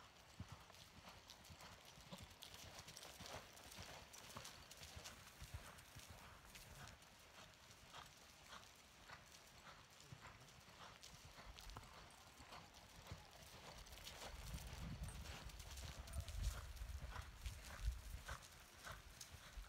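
Hoofbeats of a ridden horse on the soft dirt of an arena: a steady run of faint thuds, a few a second. They grow louder in the last few seconds as the horse comes closer.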